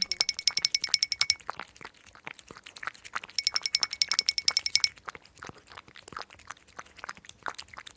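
Stock audio track of rapid, bright tinkling clicks in bursts of about a second and a half, twice, with scattered softer clicks in between.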